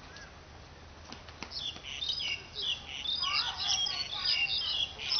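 Birds chirping in quick, high notes, starting about a second and a half in and growing busier and louder.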